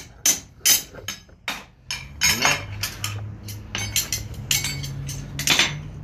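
Hammer striking a steel punch on a horseshoe over the anvil to punch a nail hole. The blows ring sharply, about two or three a second, and come less evenly after about two seconds.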